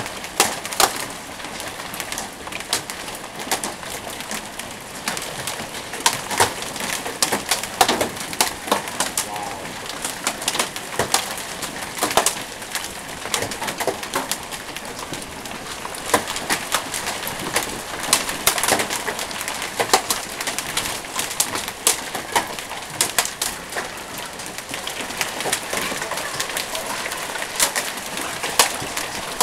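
Hailstorm: hailstones falling and striking the yard in a dense, irregular patter of sharp ticks and knocks over a steady hiss.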